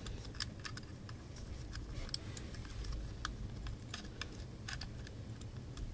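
Small irregular clicks and ticks of metal tweezers against wires and the plastic housing inside an opened JBL Flip 4 speaker as the wires are routed and tucked into place.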